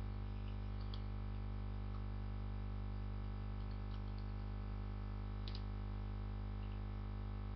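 Steady electrical hum with a buzz of evenly spaced overtones, unchanging throughout. A few faint clicks come about one, four and five and a half seconds in.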